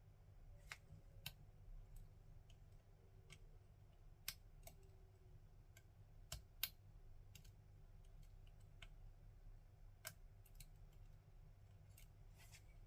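Faint, irregular small metallic clicks of a lock pick working the pins inside an ASSA Desmo lock cylinder, over a low steady hum.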